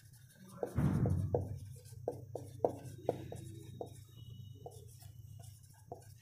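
Marker pen writing on a whiteboard: a quick run of short strokes and taps, with a faint squeak partway through. A brief, louder noise comes about a second in, over a steady low hum.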